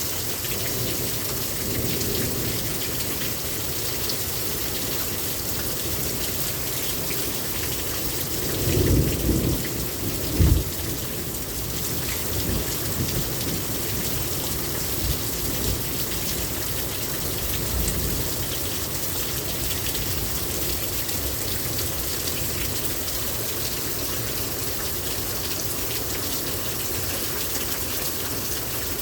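Rain pouring down steadily in a thunderstorm. About a third of the way in, a low rumble of thunder rises to a sharp, loud clap.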